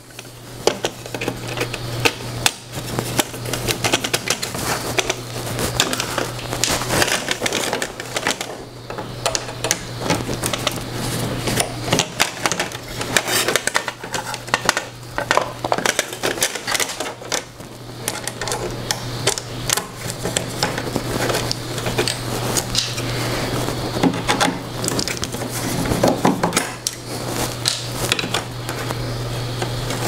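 Hand disassembly of a printer's plastic and metal assembly with a screwdriver: a steady stream of light, irregular clicks, taps and small rattles as screws are turned and parts are handled.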